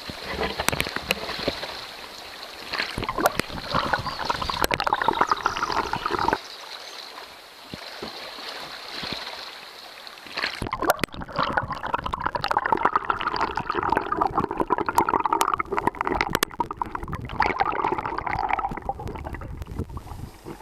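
Water sloshing, gurgling and clicking against a camera dipped into a shallow river. About halfway through, the highest sounds drop away and the water turns duller as the camera goes fully under, leaving muffled underwater rushing and bubbling.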